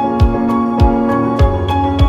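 Background music: pitched instrument chords over a steady kick-drum beat, a little under two beats a second.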